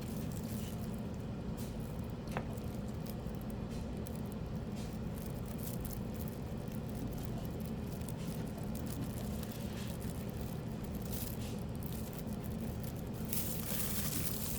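Paintbrush dabbing and scrubbing powder into a silicone mold: faint, soft, scratchy strokes that come thicker near the end, over a steady low hum.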